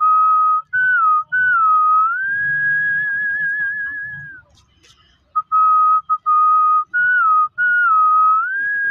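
A man whistling a tune through pursed lips: a few short level notes, a dip, then a rise to a long held note with a wavering vibrato. The phrase breaks off about four and a half seconds in and is whistled again after a short pause.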